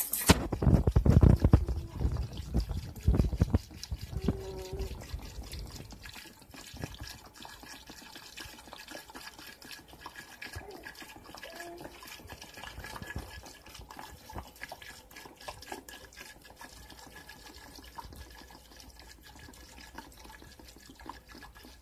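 Tampico orange drink pouring from a large plastic jug into a cooler full of liquid and cut fruit. It splashes loudly for the first three seconds or so, then settles into a quieter, steady stream.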